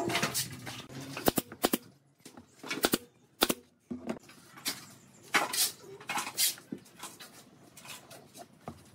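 Wooden strips and tools knocking and clattering on a wooden workbench as they are handled and set down. A scatter of sharp knocks comes in the first few seconds, with a few short scuffling sounds later.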